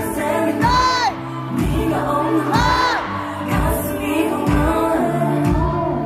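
Live K-pop performance over the hall's PA: female vocals sung into handheld microphones over a pop backing track with a steady kick-drum beat. Long sung notes dip in pitch about one second and three seconds in.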